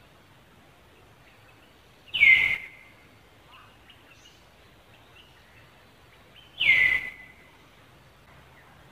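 Two shrill animal calls, about four seconds apart, each about half a second long, sliding down in pitch and ending on a steady note, over a faint steady background.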